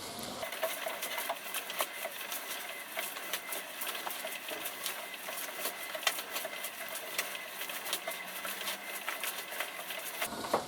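A run of light, irregular clicks and ticks, several a second, over a faint hiss.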